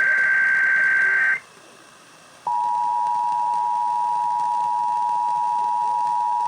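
Final burst of an Emergency Alert System SAME header, harsh digital data tones that cut off about a second in. After a short gap, the EAS attention signal starts about two and a half seconds in: the steady 853 and 960 Hz two-tone alarm, held without a break.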